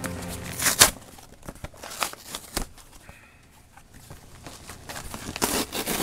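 Cardboard shipping box being handled and opened, with scattered clicks and knocks, then packing paper rustling and crumpling as it is pulled from the box. A sharp louder noise about a second in.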